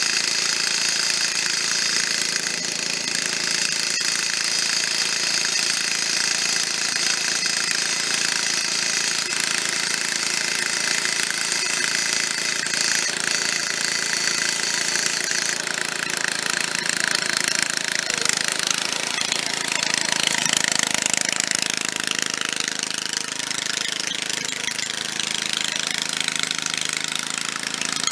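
Snapper rear-engine riding mower's 13.5 hp Briggs & Stratton engine running with a metallic rattle, which the owner puts down to the mowing deck rattling, or maybe the muffler. About halfway through the engine note shifts and wavers as the mower is driven off.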